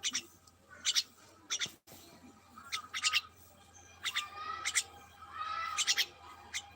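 Small birds chirping: quick clusters of two or three sharp high notes about once a second, with longer warbling calls near the middle and again about six seconds in.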